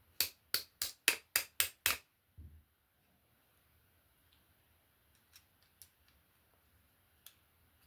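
Seven quick, evenly spaced clicks, about four a second, then a soft thump and a few faint ticks: small parts of a Lebel 1886 rifle's trigger group being worked by hand during reassembly.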